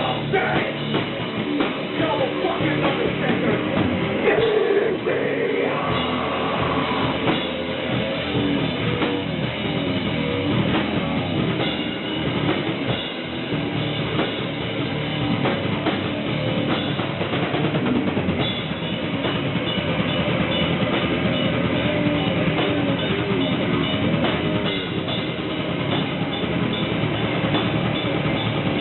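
Heavy metal band playing live: distorted electric guitars and a drum kit at full volume, dense and steady, heard through a low-fidelity audience recording.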